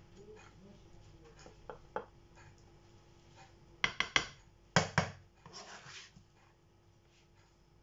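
A serving spoon knocking and scraping against porcelain plates and a frying pan as beans are dished out: a couple of light taps, then two bursts of sharp clatter about four and five seconds in, followed by a softer scrape.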